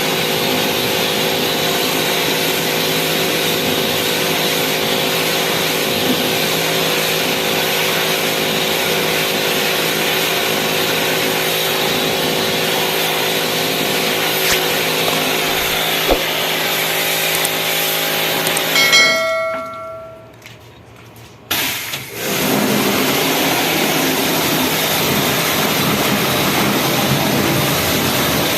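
A machine running with a steady hum and a broad hiss. It cuts out about two-thirds of the way in for two or three seconds, then starts again.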